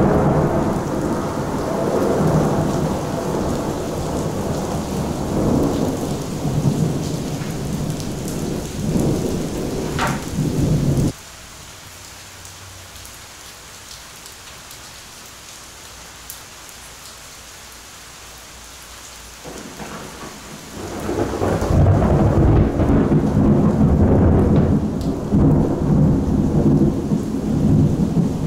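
Close thunder rumbling over falling rain. A long roll cuts off suddenly about a third of the way in, leaving only the hiss of the rain. Then another roll builds and rumbles loudly through the last third.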